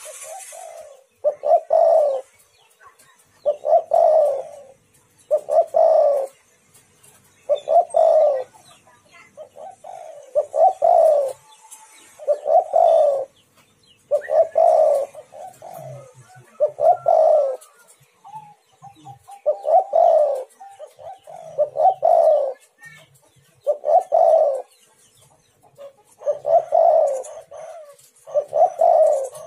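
Spotted dove cooing: a multi-note coo phrase repeated about every two seconds, each phrase lasting around a second.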